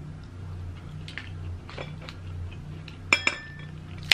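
Faint small clicks of eating over a steady low hum, then, about three seconds in, two sharp cracks as a cooked Dungeness crab's shell is pulled apart by hand, followed by another sharp crack at the end.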